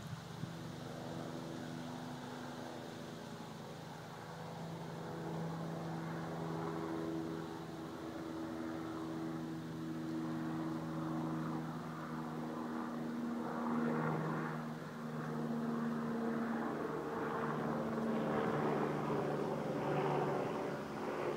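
A distant aircraft passing overhead: a steady engine drone whose pitch drifts slightly lower partway through.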